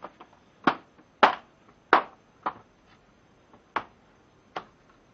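Sharp clicks and knocks, about six at uneven intervals with the loudest about a second and two seconds in, as the bit holder of a mechanic's tool kit is worked at to pop it open.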